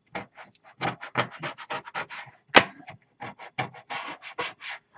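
Quick, short scratching strokes on a hard desktop, several a second, as bits of melted and hardened embossing powder are scraped off the desk. One sharp click about halfway through is the loudest sound.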